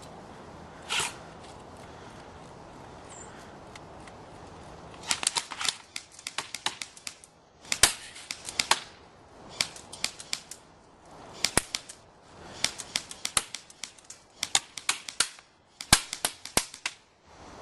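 Electric airsoft rifles firing in repeated short bursts of rapid shots, with brief pauses between bursts, starting about five seconds in; one separate sharp snap about a second in.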